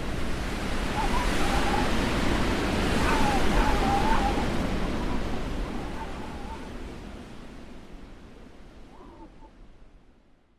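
Blizzard wind rushing steadily, with thin whistling tones wavering through the gusts. It fades out gradually over the second half.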